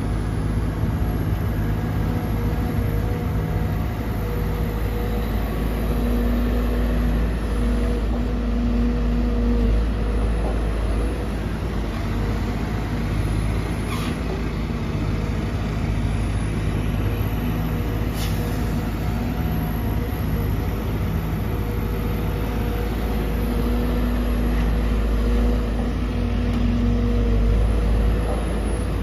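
Sumitomo SH210-6 hydraulic excavator's diesel engine running with a steady drone under working load. A higher whine comes in twice for a few seconds as it works. There are two sharp clicks near the middle.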